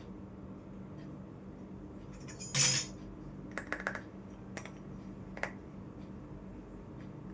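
Pieces of a miniature toy kitchen set being handled: a brief loud rattle about two and a half seconds in, followed by several light clicks and clinks, the last one ringing briefly.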